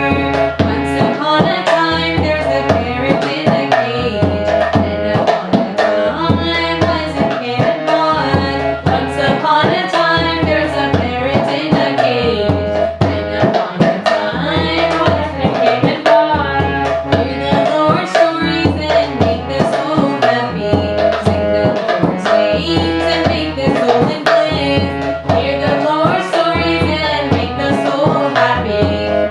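Instrumental passage of a devotional bhajan: tabla drumming a steady, regular rhythm under a melody.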